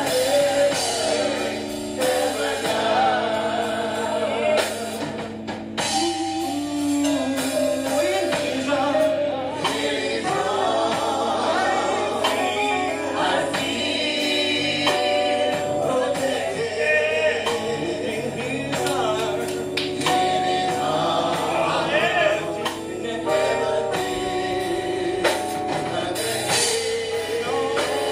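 Live gospel music: singing, with a choir, over a band with drums.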